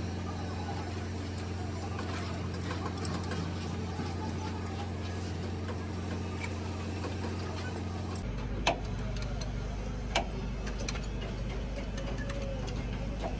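A machine motor hums steadily, with scattered light clicks. About eight seconds in, the hum abruptly drops lower, and two sharper metal knocks follow.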